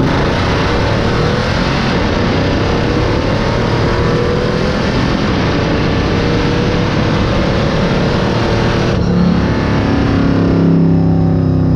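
1968 Dodge Charger stock car's engine running hard under acceleration, then easing off about nine seconds in to a lower, steady drone.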